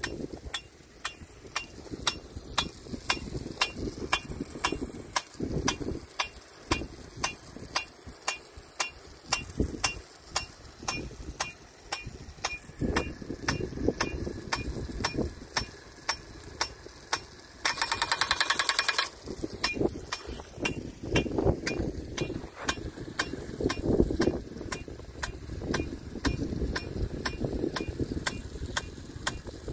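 Rain gun impact sprinkler ticking steadily, about two sharp clicks a second, as its swing arm knocks into the water jet and steps the gun round. Near the middle comes a rapid run of ticks lasting about a second, over a low gusty rumble.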